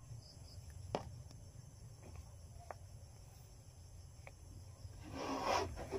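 Crickets chirring steadily in the background, with a few small clicks and a short rustle near the end as a sticker label and plastic bottle are handled.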